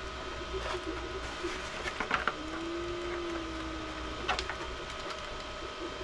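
Scattered light clicks and knocks of rigid 3D-printed plastic armour pieces shifting against each other as the forearm and hand are moved, over a steady machine hum. A short low tone sounds about halfway through.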